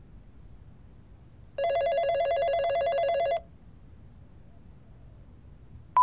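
Landline telephone ringing once, a warbling ring of just under two seconds, left unanswered. Right at the end a steady beep with a click begins as the answering machine picks up.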